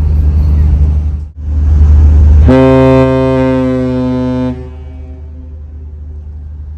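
A ship's horn blowing one low, steady blast of about two seconds, starting about two and a half seconds in, over the steady low rumble of a ferry's engines.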